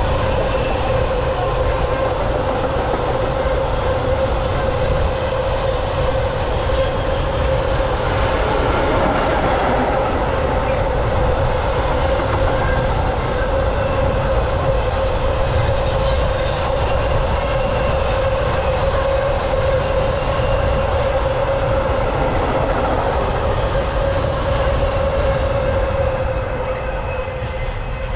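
A long train of empty open coal wagons rolling past, with steady wheel-on-rail noise and a steady tone running through it. The noise falls away near the end as the last wagon clears.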